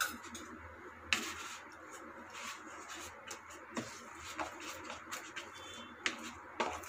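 Hands rubbing oil over a ball of dough in a plastic bowl: soft irregular pats and light clicks of hands and dough against the bowl, with a sharper click about a second in.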